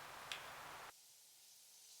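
Near silence: faint room hiss with one light tick, cutting off abruptly about a second in.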